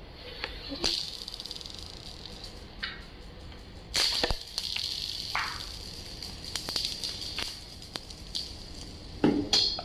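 Glass marbles rolling across a hard polished stone floor with a steady rolling hiss, clicking and clacking against one another. There are loud clatters about a second in, about four seconds in and again near the end.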